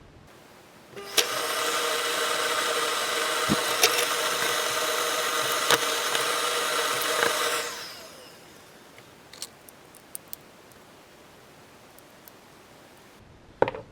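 A small electric motor runs steadily for about six seconds, then winds down. A few light clicks follow.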